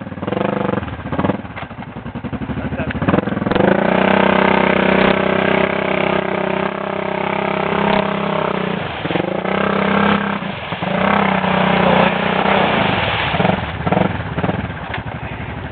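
Arctic Cat 650 ATV engine working under load in mud and ice: low pulsing revs at first, then held at high revs for several seconds before dropping and revving up and down again.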